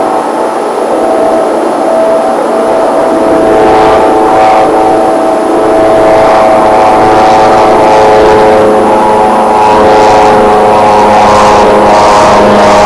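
Propeller aircraft flying low overhead: a steady engine-and-propeller hum of several held tones that grows louder a few seconds in and stays loud.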